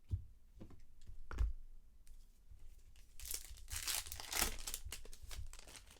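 A foil trading-card pack wrapper being torn open and crinkled, with about two seconds of tearing starting some three seconds in, after a few light knocks of handling.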